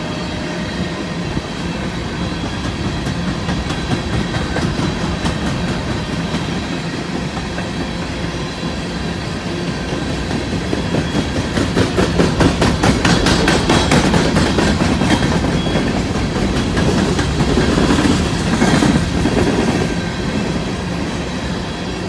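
Empty freight coal hopper cars rolling past, their steel wheels clacking rapidly over the rail joints over a steady rumble. The clacking gets louder about halfway through and eases slightly near the end.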